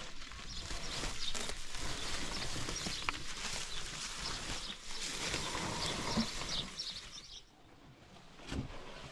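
Rural outdoor sound with many short, high bird-like chirps and animal calls, over rustling as a tarp and sacks are handled. Near the end it drops suddenly to a quieter indoor sound.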